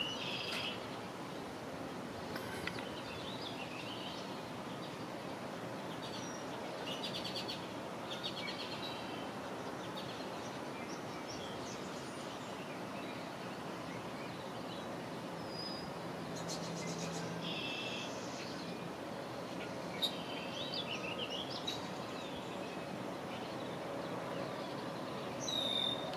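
Small birds chirping and trilling every few seconds over a steady background hiss.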